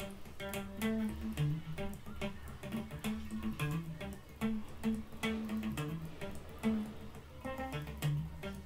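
Electric guitar played solo: a riff of short, separately picked single notes, with a steady low hum underneath.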